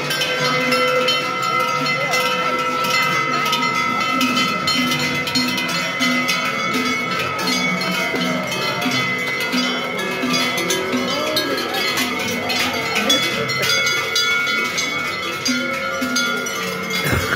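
Many cowbells on a herd of cattle walking past, clanging and ringing without a break in a dense jumble of overlapping bell tones, with voices of onlookers faintly underneath.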